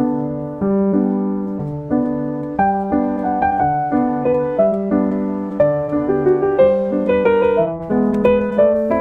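Background piano music: notes and chords struck at an even pace, each dying away before the next.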